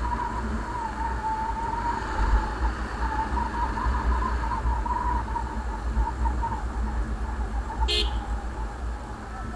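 Bajaj Pulsar motorcycle riding and slowing down, with low wind rumble on the microphone and a whining tone that slowly falls in pitch as the bike loses speed. A brief sharp sound about eight seconds in.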